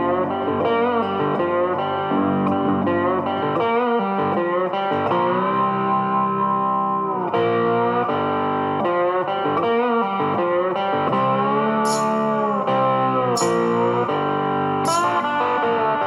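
Background music led by a guitar, with held notes that bend in pitch.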